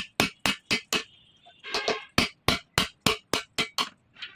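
Hammer striking repeatedly in a quick, even rhythm, about four blows a second, with a short pause about a second in.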